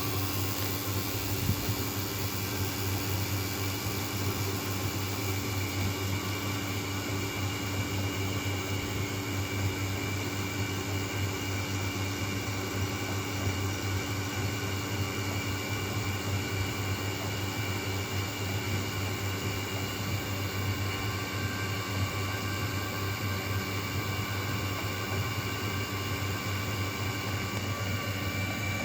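Vacuum pump running steadily through a vacuum leak test, a constant low hum with several steady whining tones over an even hiss.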